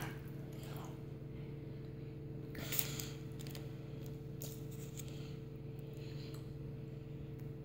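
Steady low electrical hum, with a brief rustle and a few faint clicks of handling about two and a half seconds in.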